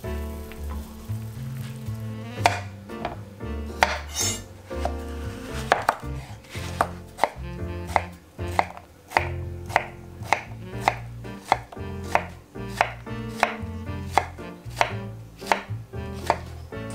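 Chef's knife chopping a zucchini on a wooden cutting board. It makes a series of sharp knocks, a few spaced-out cuts at first, then a steady run of about two to three cuts a second.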